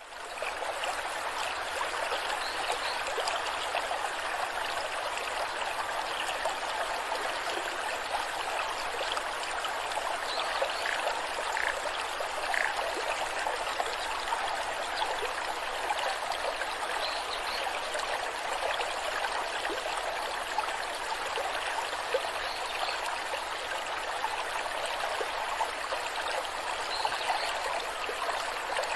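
Waterfall: water cascading and splashing in a steady, even rush.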